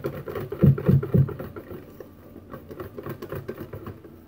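Wire balloon whisk beating thick pancake batter in a stainless steel bowl: a fast run of short, wet strokes, with three louder thumps about a second in.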